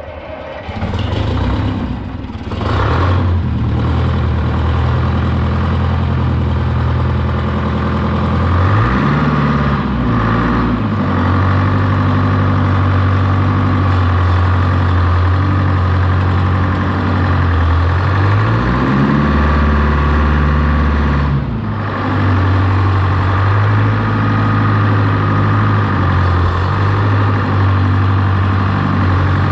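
Old tractor engine running, uneven for the first few seconds and then steady; its speed drops about a third of the way in, climbs again past the middle, dips briefly, then holds steady to the end.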